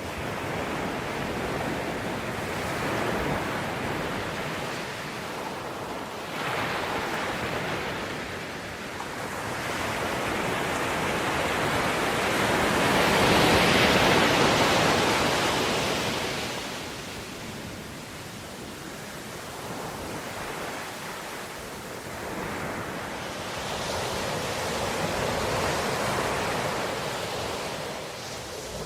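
Ocean waves breaking and washing on a shore, a steady rushing noise that swells and falls back every few seconds, with the biggest wave rising to a peak about halfway through.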